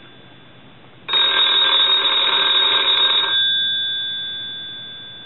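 Telephone bell ringing on a test ring: one ring of about two seconds starts about a second in, then the bell keeps sounding and fades away slowly. This is the final ringer check on the repaired and converted telephone.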